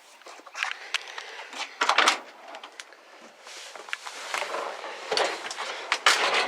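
A run of scuffs, clunks and knocks from someone getting into a 1964 Ford F100 pickup: a truck door opening and movement in the cab. The loudest knocks come about two seconds in and again near the end.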